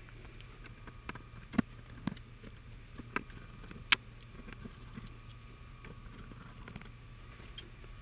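Precision screwdriver backing small screws out of the bottom of a mini PC: scattered light clicks and taps of the bit and screws, the sharpest one about four seconds in.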